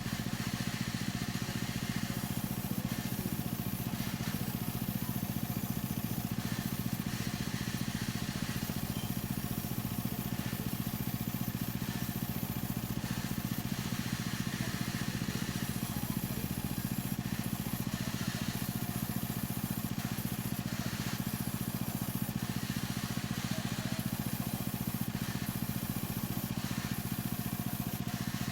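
A woodworking machine's motor running with a steady low hum and no changes in pitch or load.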